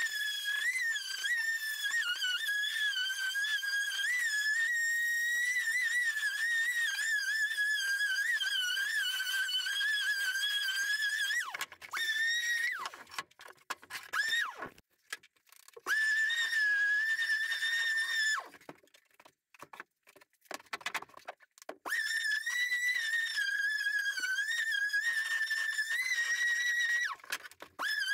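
A whistled tune: a single high tone wandering up and down in pitch, breaking off twice for a few seconds in the middle.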